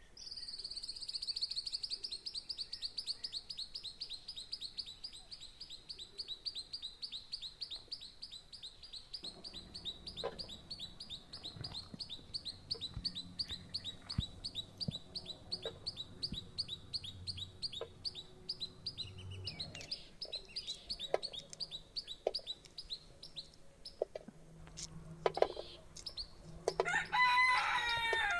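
Farmyard chickens: a rapid, high, evenly pulsed trill goes on for about twenty seconds over scattered knocks, and a loud crowing call sounds near the end.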